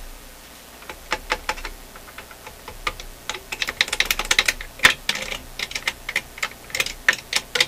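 Irregular tapping and knocking with a hand tool on parts inside a vacuum tube amplifier chassis, scattered at first and coming thicker and faster from about halfway, with one louder knock. It is a tap test, beating on the circuit to shake out an intermittent fault while the meters are watched.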